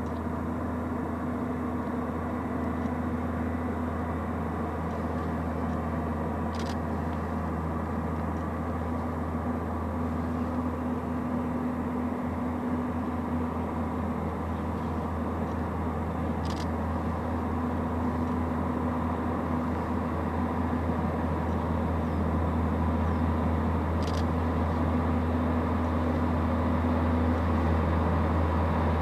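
Diesel train engine droning steadily with a low hum, slowly growing louder as it approaches, with a few faint ticks.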